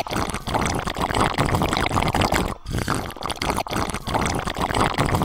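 Fish curry gravy boiling hard in a metal kadai: a dense, continuous bubbling sizzle full of small pops.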